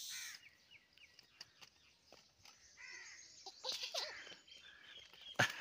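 Birds chirping in short, falling calls, a few at a time, with a few faint clicks in between.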